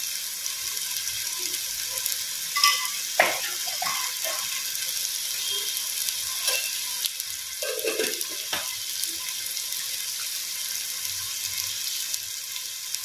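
Onion-tomato masala sizzling steadily as it fries in a clay pot, with a few short knocks and scrapes around three and eight seconds in.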